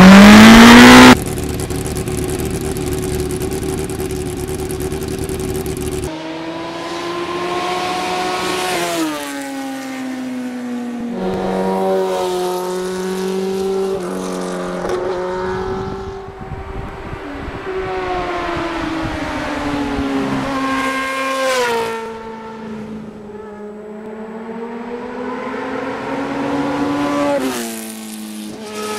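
Motorcycle engine revving hard and shifting through the gears, its pitch climbing and then dropping at each shift, several times over. The loudest moment is a fast rising rev in the first second.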